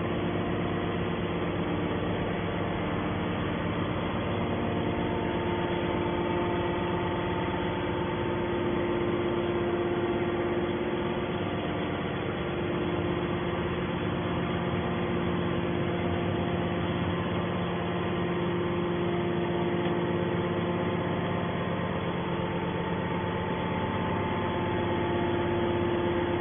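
Heavy machinery running steadily: a constant motor drone with a few steady hum tones and no separate crunches or impacts.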